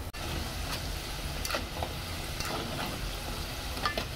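Cassava dough balls deep-frying in a pot of hot oil: a steady sizzle with scattered pops and crackles, and a light tap near the end.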